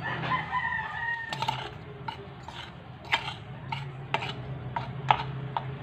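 A rooster crows once for over a second at the start. Then spoons click and scrape against a bowl of flour as pancake batter is mixed, in a string of sharp clinks.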